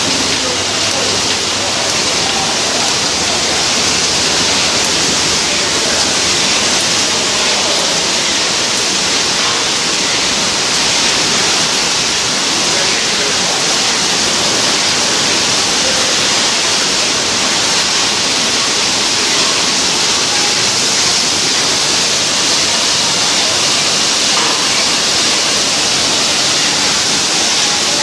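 Canning production line machinery running, heard as a steady, loud hiss with no distinct rhythm or separate clanks.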